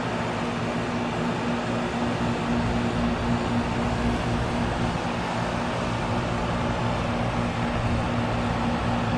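Outdoor unit of a 2000 Philco heat pump running through its defrost cycle: a steady compressor hum with a low rumble that grows stronger right at the start.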